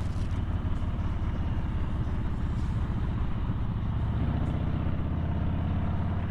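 Cruiser motorcycle's engine running as the bike rides along and gathers speed, recorded on the bike itself; its note changes about four seconds in.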